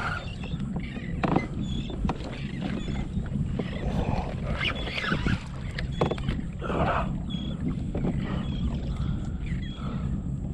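Water sloshing and splashing against a kayak hull as a hooked bull redfish tows the kayak along, over a steady wind rumble on the microphone.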